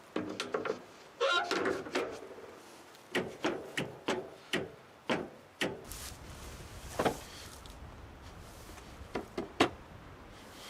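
Irregular knocks and clunks of hard objects being handled and set down, busiest in the first six seconds, with a rattling clatter about a second in. A few single knocks follow near the end.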